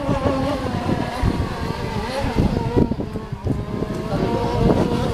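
Gas-powered RC racing boats running flat out across the water, their small two-stroke engines giving a high, steady whine that wavers slightly in pitch.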